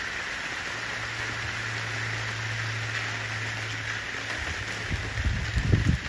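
Steady rain falling onto puddled pavement, an even hiss of drops. A low hum comes in about a second in and fades after about four seconds, and low rumbling thumps near the end are the loudest part.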